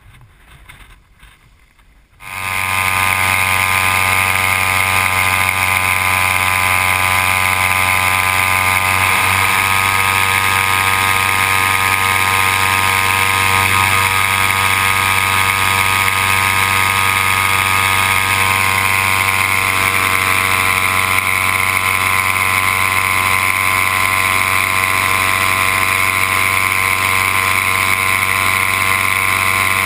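Paramotor engine and propeller running steadily in flight: a loud, unchanging engine drone with a strong buzz. It cuts in abruptly about two seconds in.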